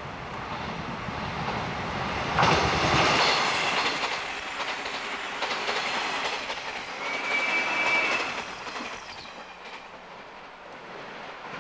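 A bonnet-nosed JNR 485-series limited-express electric train passes at speed. It is loudest as the front cars go by about two and a half seconds in, then runs on with the steady sound of its wheels on the rails. There is a brief high squeal a little before the 8-second mark, and the sound fades as the train pulls away.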